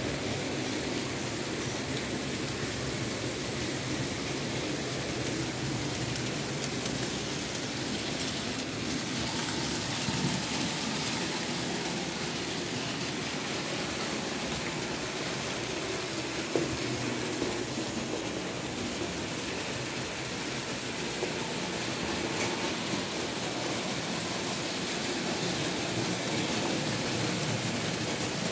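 Märklin H0 model BR 23 steam locomotive running along the track with a train of wagons: a steady whir and rolling rattle of motor and wheels on the rails, with a few light clicks and one sharper click about halfway through.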